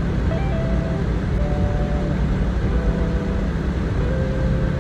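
Car driving on a snow-covered road: a steady low road and engine rumble. A simple melody of held notes plays over it.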